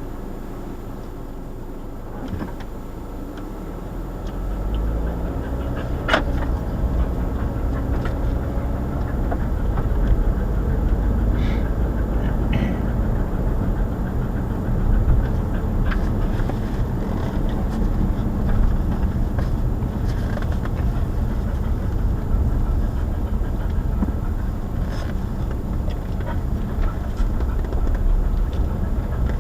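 Car driving, heard from its dashcam: a steady low rumble of tyres and engine that grows louder about four seconds in, with a few light ticks and knocks from the car over the road.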